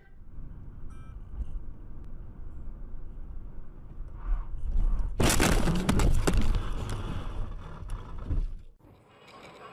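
Car cabin road rumble, then about five seconds in a sudden loud collision: a crash with crunching and breaking that lasts about three seconds and cuts off abruptly.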